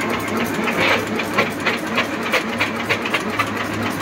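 Automatic agarbatti (incense-stick) making machine running: a steady motor hum with a rhythmic clacking, about three to four clicks a second, as it feeds and extrudes coated sticks.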